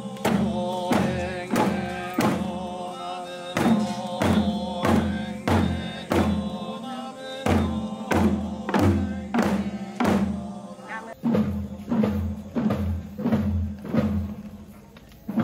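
A drum beaten in a steady, even rhythm, about three beats every two seconds, with voices chanting along over the beat.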